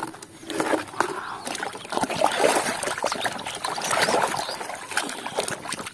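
Muddy water sloshing and splashing in a basin as a plastic toy is swished around in it by hand, with irregular splashes and drips.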